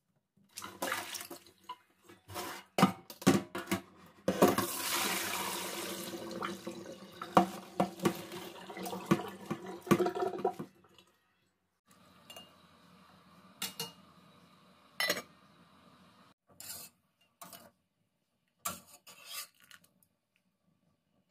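Kitchen tap running onto green beet leaves in a stainless-steel colander in a steel sink for about six seconds in the middle, with knocks and clinks of metal colander and pots before, during and after.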